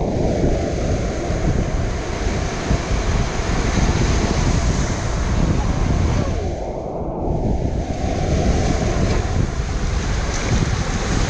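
Sea waves washing onto a beach in two swelling surges of hiss, with wind buffeting the microphone as a heavy low rumble.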